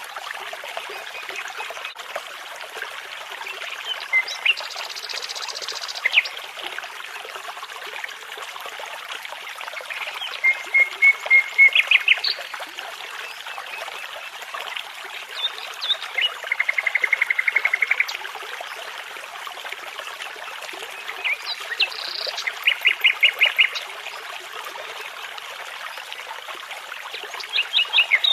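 Nightingale song: separate phrases of rapid repeated notes, with pauses of several seconds between them. A babbling brook rushes steadily beneath.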